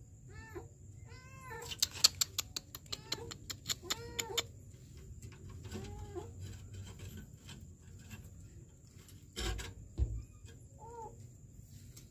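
A kitten trapped down a drain meowing again and again, each call rising then falling in pitch. A quick run of sharp clicks comes about two seconds in, and a couple of dull thumps come near the end.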